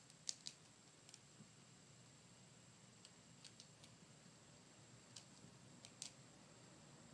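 Near-silent room tone with a faint steady high hiss, broken by about ten faint, sharp little clicks and ticks scattered through it.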